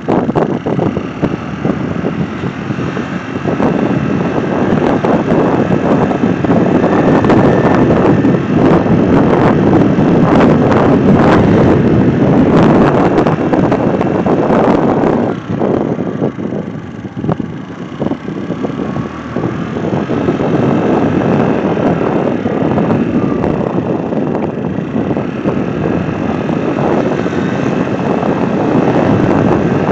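Wind buffeting the microphone: a loud, even rush that eases for a few seconds about halfway through, then picks up again.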